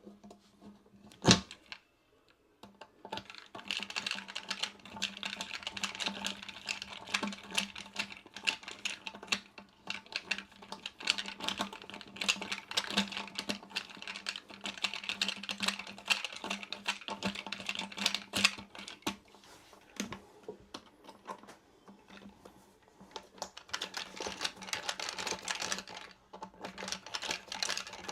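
Rapid, irregular clicking and rattling of small hard parts being worked by hand, as in fitting toilet-seat hardware, with a single sharp knock about a second in.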